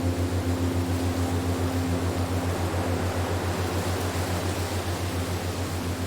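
Wind-like rushing noise from a relaxation soundscape, over a low hum that pulses evenly about five times a second. A higher held tone fades out about halfway through.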